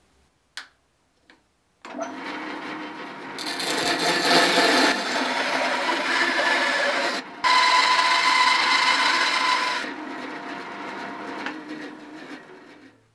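Bandsaw starting up and running, its blade cutting through a piece of burl wood in two louder stretches of a couple of seconds each, then winding down.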